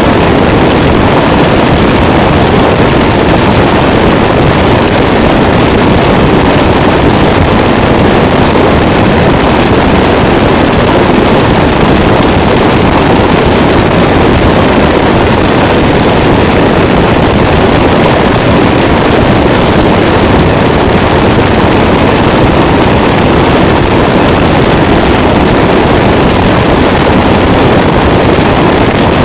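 Harsh noise wall: a loud, dense, unchanging mass of distorted static, heaviest in the low mids, with no rhythm, pitch or distinct hammer strikes.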